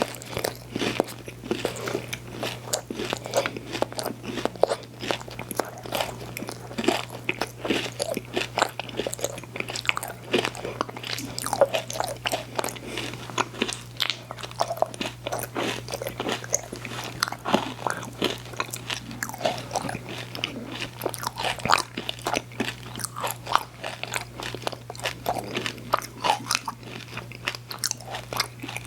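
Close-miked biting and chewing of a frozen ice cream sandwich: steady, irregular crunching and wet mouth clicks with no talking.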